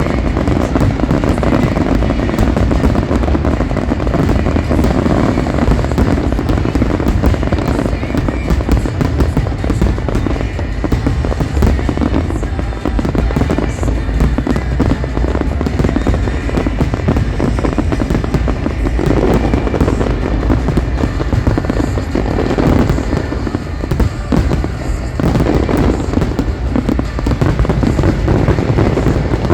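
Fireworks going off in a dense, continuous barrage, with many bursts overlapping and hardly a gap between them. Music plays underneath.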